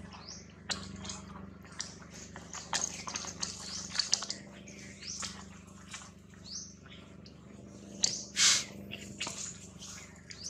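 Short, high-pitched animal chirps and squeaks, scattered irregularly, with one louder call about eight and a half seconds in.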